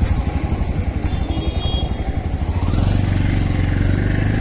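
Auto-rickshaw's single-cylinder engine running close by with a fast, even chugging pulse. About three seconds in, the chugging gives way to a steadier, deeper drone.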